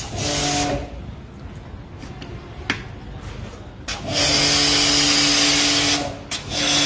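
Electric pressure washer running: the motor and pump hum under the hiss of the spray gun's jet. The sound cuts off just under a second in as the trigger is released, starts again about four seconds in, and breaks off briefly near six seconds.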